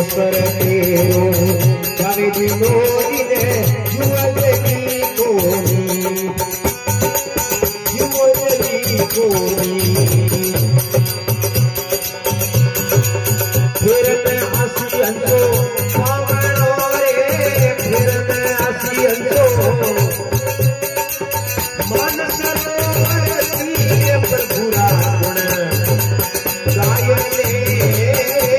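Rajasthani devotional folk song: a man singing with harmonium accompaniment, a dholak drum keeping a steady rhythm, and hand percussion played alongside.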